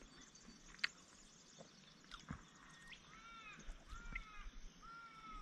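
A bird calling: a run of drawn-out, downward-arching calls in the second half, the last held longest. A light click about a second in.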